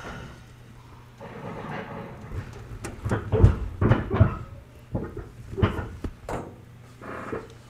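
Irregular clunks and knocks inside a JR 211 series 3000-subseries electric train car, the loudest bunched together in the middle.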